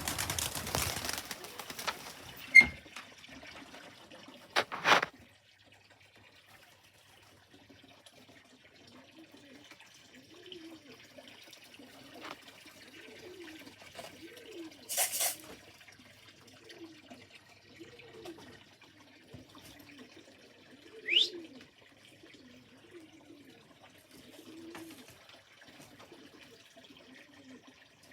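Racing pigeons cooing, a low rising-and-falling coo repeated every second or so. There are a few sharp knocks and a rattle in the first five seconds, and a short rising squeak about 21 seconds in.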